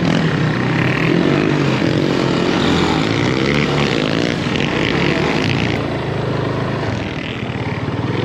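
Onboard sound of a Yamaha motorcycle's engine running at low speed on dirt, its revs rising and falling as the throttle is worked.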